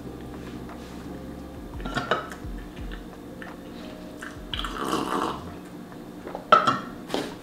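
Tableware being handled during eating: a knock about two seconds in, a brief rustle around the middle, and two sharp knocks near the end.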